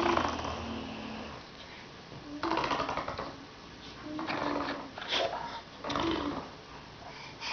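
Young child making mouth fart noises, blowing raspberries through his lips in several short, buzzy bursts with pauses between them.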